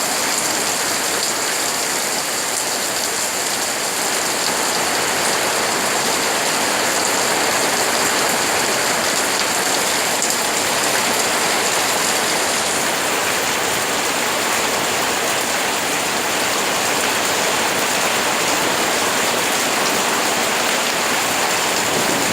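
Heavy rain of a summer storm falling steadily, an even, dense hiss.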